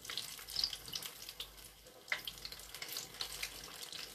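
Battered sweet potato deep-frying in a pan of hot oil: a steady sizzle with scattered small crackles and pops.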